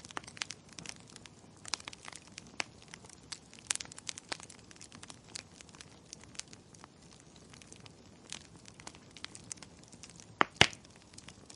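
Wood fire crackling in a fireplace: irregular small snaps and ticks over a faint hiss, with two loud pops in quick succession near the end.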